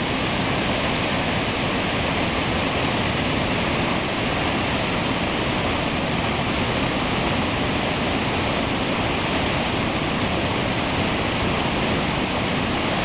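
Steady, even rush of water from the South Fork of the American River, running high after heavy rain.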